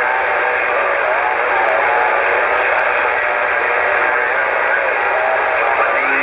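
CB radio receiver on Channel 19 putting out a steady rush of static through its speaker, with faint warbling sounds under it and a low steady hum coming in near the end. The S-meter needle stays up: an open carrier with no readable voice, which the operator takes for a station keying up that he cannot hear.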